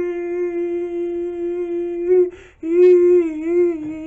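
A man's voice holding one long, steady sung note. He takes a quick breath a little over two seconds in, then the note resumes with its pitch wavering.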